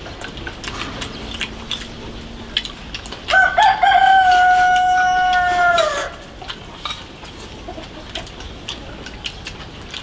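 A rooster crowing once, about three seconds in: one long call of nearly three seconds that holds its pitch and drops away at the end.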